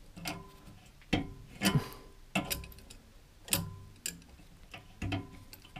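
Sharp metal clicks and clinks, about one a second and unevenly spaced, from a hand tool working at the exhaust muffler's hanger. Some clicks leave a short ringing tone behind them.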